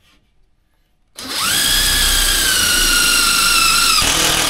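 Power drill driving a screw into plywood: the motor starts about a second in with a loud, steady high whine that sags a little in pitch, then changes near the end as the screw pulls right through the ply.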